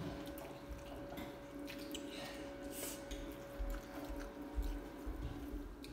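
Eating at a table: chewing and mouth noises with scattered small clicks and taps of dishes and a cup, over a steady faint hum.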